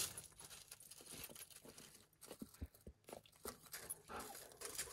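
Faint, scattered crunches and clicks of a dog's paws stepping on pea gravel.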